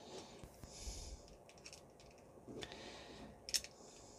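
Quiet breathing through the nose, with a few small sharp clicks from handling plastic figure parts and a small screwdriver; the loudest click comes near the end.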